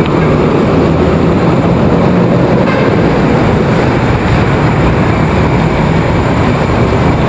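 Steady rush of wind and road noise on the microphone of a camera riding on a moving bicycle, with city traffic underneath.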